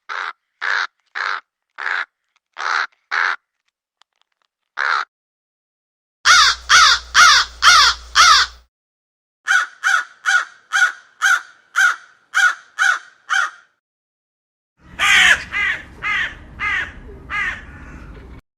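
Crows cawing in several separate series with silent gaps between them. First comes a run of about seven single caws at roughly two a second. Then there is a loud rapid burst, a steady string of about ten caws, and near the end another loud burst over a low background rumble.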